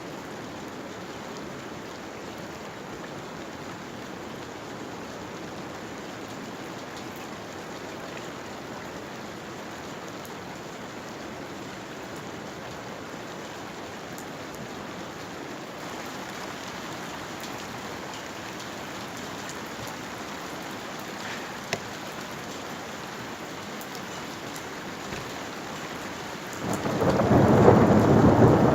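Steady rain falling, with one sharp tap about three-quarters of the way through. Near the end a loud thunderclap breaks in and rumbles on, far louder than the rain.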